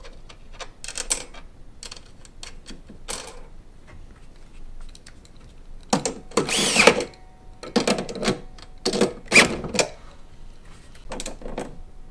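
A few small metal clicks of nuts and washers being set on bolts, then a cordless drill running in several short bursts, its motor speeding up and slowing, from about six seconds in as it runs 13 mm nuts down onto the ladder's mounting bolts. The first burst is the longest and loudest.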